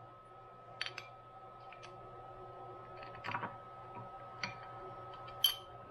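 A few light clicks and knocks as an aluminium ball-screw housing and a hand tool are handled and fitted against a mill's cast-iron base, over a faint steady hum.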